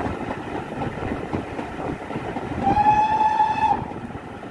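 Great Western steam locomotive's whistle sounding one blast of about a second, a single high steady tone, about two and a half seconds in. Under it runs the steady noise of the moving train.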